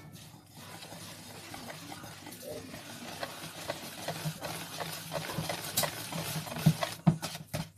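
Wire whisk beating baking powder into cake batter in a bowl: a fast, even run of soft strokes that grows louder and more forceful near the end.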